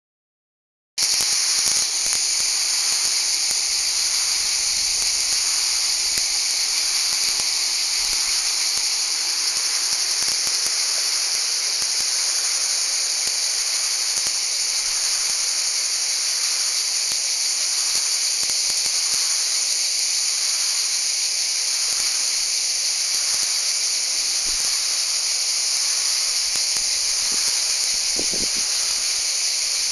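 Chorus of cicadas singing: a loud, steady, high-pitched buzz that starts about a second in and holds without a break.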